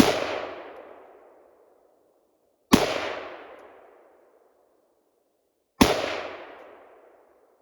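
Three rifle shots, about three seconds apart, each followed by a long rolling echo that fades out. They are shots fired while sighting the rifle in.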